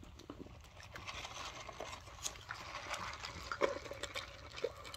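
Drink being sucked through a straw from a lidded plastic fountain cup: a soft, hissing slurp with small clicks, from about a second in until near the end.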